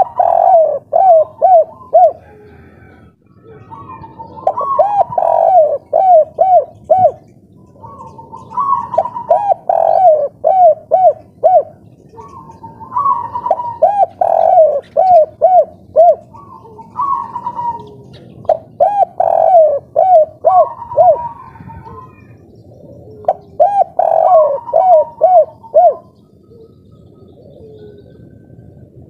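Spotted dove (tekukur, 'kuk 3' song type) cooing loudly: each phrase opens with a higher coo and runs into a quick series of short, lower coos, repeated about every four seconds.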